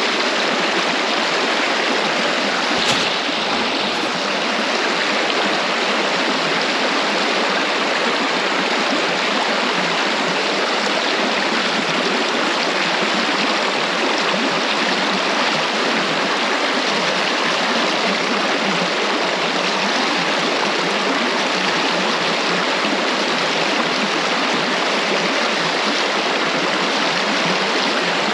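Shallow river water rushing steadily over stones in a gravel riffle around the wading angler, a constant even rush. A single short knock stands out about three seconds in.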